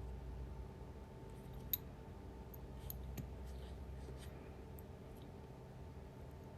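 Scattered light clicks and taps of small repair tools working on an opened phone, the sharpest about two seconds in, over a steady low hum.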